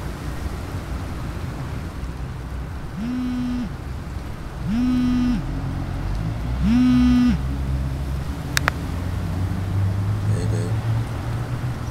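Mobile phone vibrating: three low buzzes, each under a second and about two seconds apart, the last the loudest, followed by a short sharp click. A low steady rumble runs underneath.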